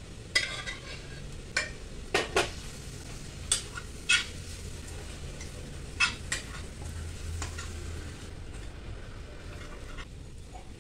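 A metal spoon stirring boiled mutton into frying masala in a stainless steel pan, knocking and scraping against the pan over a steady sizzle. The knocks come irregularly, most in the first few seconds, with a few more later.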